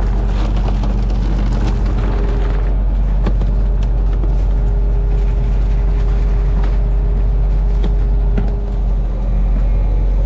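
Fishing boat's engine running steadily, a deep constant drone with a couple of steady hum tones above it, with scattered light knocks and clicks.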